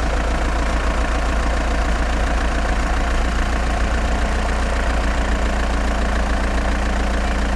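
A large engine idling steadily with a deep, even rumble that cuts off suddenly at the end.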